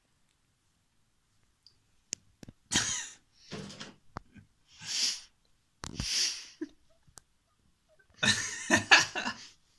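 A woman's short, breathy bursts of stifled laughter close to the microphone, starting about two seconds in: a few separate puffs of breath, then a longer, louder voiced burst near the end.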